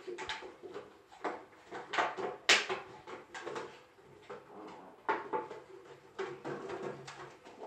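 A Shih Tzu pushing a plastic drink bottle around the floor. The bottle knocks, crinkles and scrapes irregularly, with the sharpest knock about two and a half seconds in.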